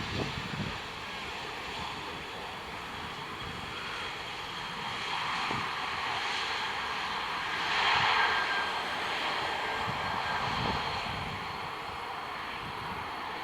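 Airbus A320's CFM56 jet engines, a steady rushing that swells to its loudest about eight seconds in and then eases off.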